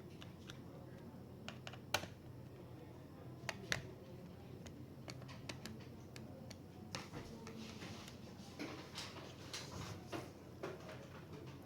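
Scattered sharp clicks and taps of small hard parts being handled during laptop repair work. Two louder clicks come about two seconds and three and a half seconds in, then a quicker run of lighter clicks in the second half.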